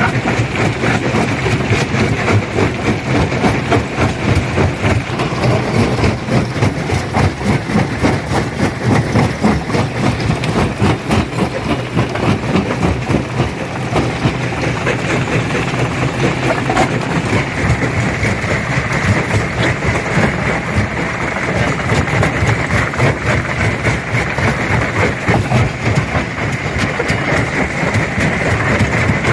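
Stone crusher at work, breaking rock: a steady heavy machine drone with a dense, continual clatter of cracking and knocking stones.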